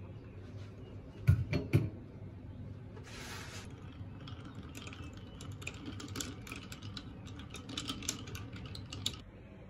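A few sharp knocks about a second in, then a spoon stirring iced coffee in a glass mug: ice cubes clink against the glass in quick, irregular ticks, stopping just before the end.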